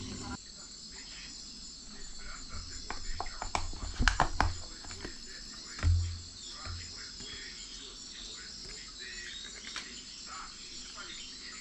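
Steady high-pitched chirping in the background, with clicks and knocks from a clear plastic tub being handled, the loudest knocks about four and six seconds in.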